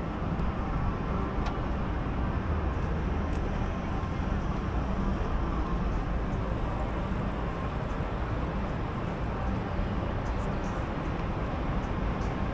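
Steady city street ambience, mostly a low traffic rumble, with a faint click about a second and a half in.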